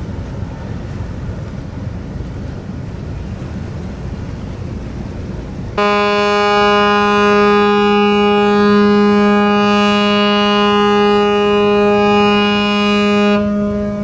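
Ship's horn of the departing patrol ship Mizuho sounding one long, steady blast of about seven and a half seconds, starting suddenly about six seconds in, over steady background noise. A prolonged blast like this is the signal a ship gives when leaving its berth.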